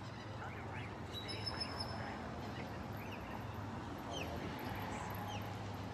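Several small birds chirping and calling in short downward-sliding notes, one giving a thin held whistle about a second in, over a steady low background hum.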